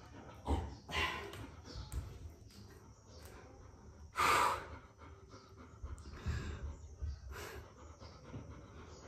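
A man breathing hard after push-ups: irregular heavy breaths and forceful exhalations, the loudest a long hissing blow about four seconds in, with a few soft thumps of body movement.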